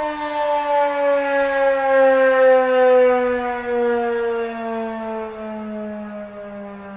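Federal Signal 2001-SRNB rotating electromechanical warning siren winding down, its single tone falling steadily in pitch. The sound swells and then fades as the rotating horn sweeps past, growing quieter near the end.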